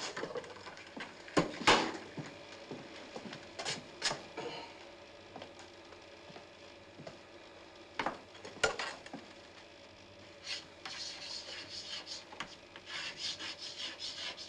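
A few sharp knocks and bumps of a chair and people moving, the loudest about one and a half seconds in. From about ten seconds in comes a quick run of scratchy strokes: chalk writing a word on a blackboard.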